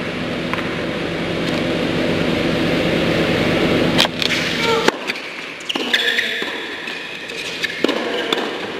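Indoor tennis hall noise, a steady hum at first. From about four seconds in come a few sharp knocks, then short high squeaks of tennis shoes on the hard court.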